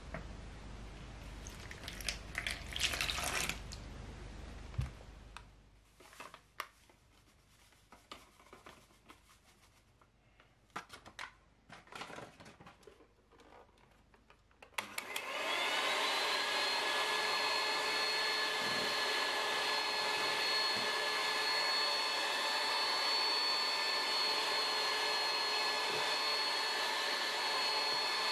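Cold water poured into a plastic bowl over whipping-cream powder, then a few small clicks and knocks. About halfway through, an electric hand mixer switches on; its whine rises quickly to speed and then runs steadily as it whips the cream.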